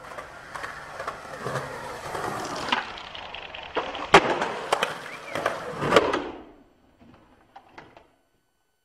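Skateboard wheels rolling on concrete, broken by hard clacks of the board. The loudest crack comes about four seconds in and another near six seconds. The rolling fades out about a second and a half later, leaving a few faint clicks.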